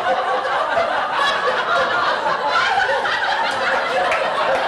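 Comedy club audience laughing steadily, many people at once.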